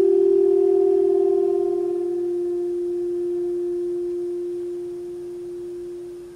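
A soft, pure-toned saxophone note held for several seconds. At first a second, slightly higher pitch beats against it with a quick wavering; the two then merge into one tone that slowly fades away near the end.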